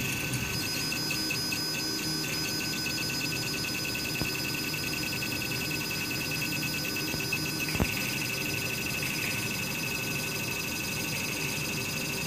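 MakerGear M2 3D printer printing, its stepper motors giving high-pitched tones that pulse rapidly as the print head moves back and forth, over a steady whir. A single sharp click comes about eight seconds in.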